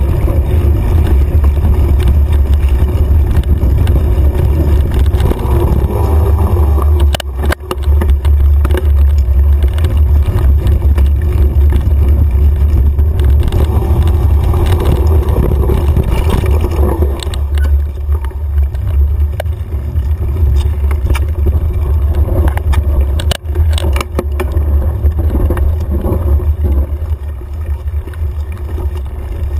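Steady heavy rumble of wind and trail vibration on a handlebar-mounted camera as a mountain bike rides fast over a dirt trail, with the bike and mount rattling. Sharp knocks come about a quarter of the way in and again about three-quarters of the way in, as the bike goes over bumps.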